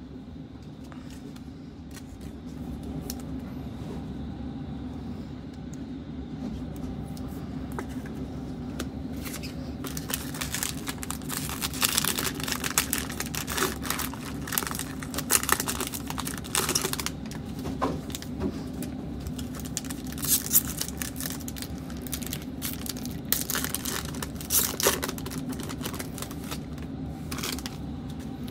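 A Panini Prizm basketball card pack's foil wrapper being handled, torn open and crinkled by hand: quiet rustling at first, then from about ten seconds in a long run of sharp crackles and tearing. A steady low hum sits underneath.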